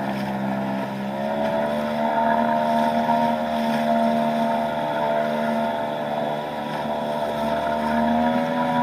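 Small Nissan (Tohatsu) 3.5 hp two-stroke outboard motor running steadily, pushing an aluminum canoe through choppy water. Its pitch rises slightly about a second in and again near the end.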